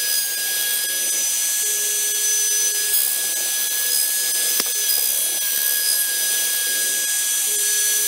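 Homemade CNC router's spindle running at speed with a steady high whine, its end-mill bit cutting into alder wood with a continuous hiss. There is a single sharp click about halfway through.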